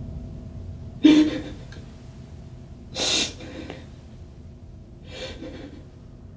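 A person's sharp, gasping breaths: three of them about two seconds apart, the first the loudest and the last the softest.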